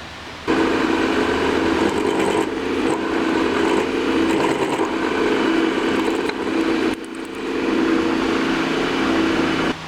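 Machine drill spindle running while drilling the tap-drill hole for a 1/4-20 set screw: a steady motor hum that starts about half a second in, dips briefly about two-thirds through, and stops just before the end.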